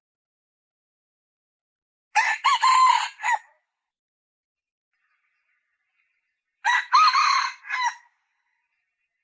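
Female red junglefowl calling twice, about four and a half seconds apart; each call lasts about a second and a half and is broken into several short notes.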